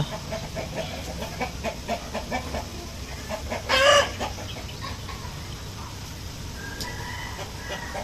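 Chickens clucking, with one loud, short squawk about four seconds in, over the steady rush of water filling the drum of a Panasonic top-load automatic washing machine.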